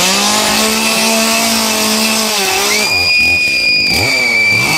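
Chainsaw revving, held at high revs for about two and a half seconds, then dropping off and revving up again near the end. A long high-pitched squeal rides over it from about three seconds in.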